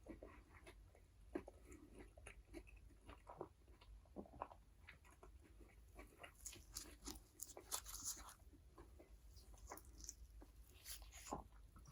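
Quiet, close-miked eating sounds of McDonald's food: chewing with soft crunches and small mouth clicks. It gets busier with crisp crackling from about six to eight seconds in and again near the end.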